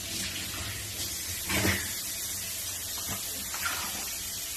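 Water running steadily from a kitchen tap as hands are washed under it.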